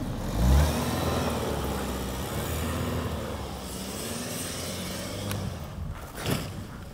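Opel Astra G estate's engine revving up and down as the car pulls away and slides sideways on packed snow, its wheels spinning. The engine is loudest as it pulls off and fades as the car moves away.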